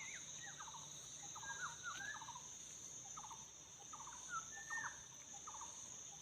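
Laughingthrushes calling: quick series of chirping, sweeping notes repeated every second or so, over a steady high drone of insects.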